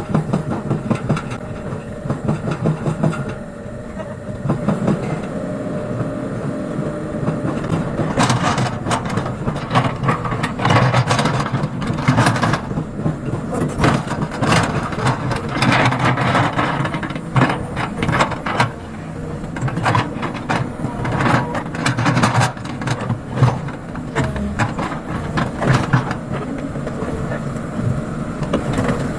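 Sumitomo excavator's diesel engine running steadily, with repeated metallic clanks and scraping from about eight seconds in as the machine works.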